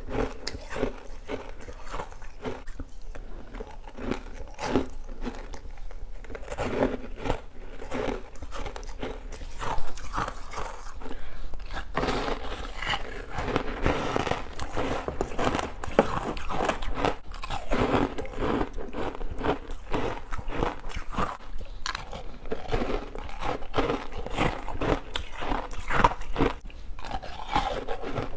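Humidifier frost and passion fruit bites being bitten and chewed, a dense run of crisp, irregular crunches.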